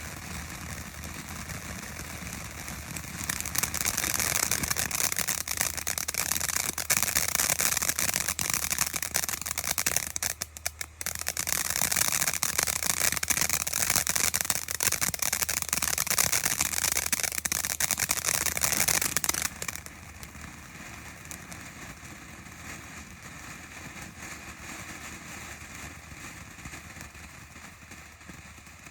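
T-Sky Txas Cowboy 350-gram fountain firework spraying with a steady hiss. It grows much louder a few seconds in, drops out for a moment near the middle, then falls back to a quieter hiss for the last third.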